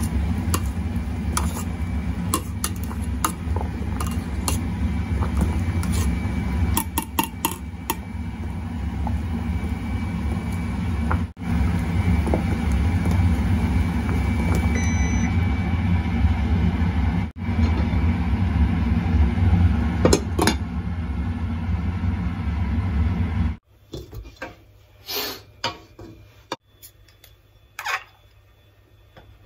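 Kumquats boiling hard in sugar syrup in a stainless steel pot: a steady low bubbling rumble with light clicks of a mesh skimmer against the pot. About 24 s in it drops to quiet, with a few small clinks of chopsticks on a porcelain dish.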